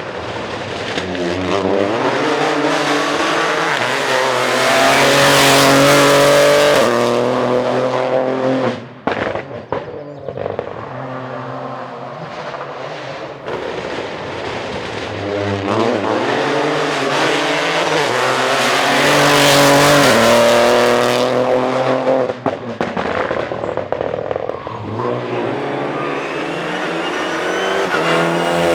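Rally cars on full throttle, their engine notes climbing in steps through the gears, loudest about six seconds in and again about twenty seconds in. Each run ends with a lift off the throttle and sharp pops before the next car comes up.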